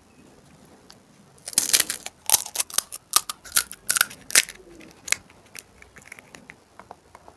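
Crisp, hollow panipuri shells cracking and crunching up close in a quick run of sharp crackles, loudest from about a second and a half in until past the middle, then thinning to faint clicks.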